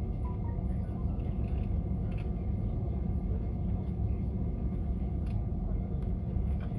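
Airbus A320-200 cabin noise while taxiing after landing: a steady low rumble of the engines at idle and the rolling airframe, with a faint steady whine above it.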